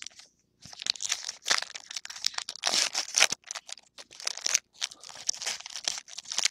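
Wrapper of a 2011 Topps Lineage trading-card pack crinkling and tearing as the pack is handled and ripped open, in irregular rustling bursts starting about half a second in.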